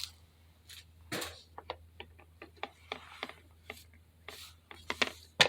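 Light, irregular clicks and taps of small craft supplies being handled and moved around on a tabletop, with a sharper knock near the end.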